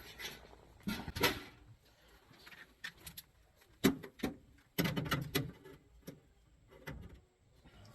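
Work handling noise: scattered clicks, knocks and rustling of tools and parts being handled, with a cluster of sharp taps around the middle.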